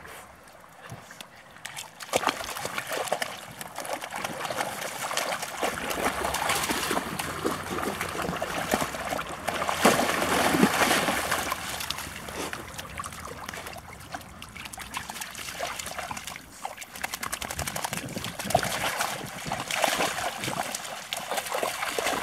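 Dogs splashing and wading through shallow pond water, with trickling and sloshing; the splashing starts about two seconds in and goes on busily, loudest around the middle.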